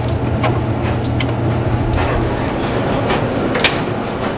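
Steady low hum of laundry machines running, which eases off about halfway through. Over it come several sharp clicks and knocks as clothes are pulled from a machine's drum and its door is handled.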